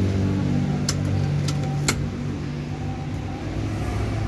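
A Toyota Kijang Innova's 2.0-litre four-cylinder petrol engine idling steadily. Three sharp clicks come over it between about one and two seconds in.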